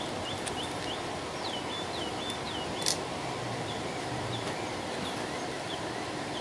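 Small birds chirping in the background, quick short notes several times a second, thinning out after the first few seconds, over a steady hiss. One sharp click about three seconds in.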